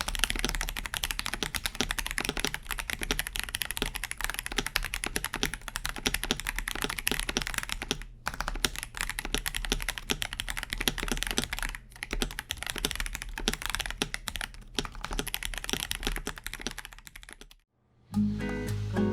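Fast typing on a KBD67 Lite R3 mechanical keyboard with stock Akko Sponge tactile switches in Kailh-style housings: a dense, clacky run of keystrokes with a few short pauses. The typing stops about a second and a half before the end, and music begins.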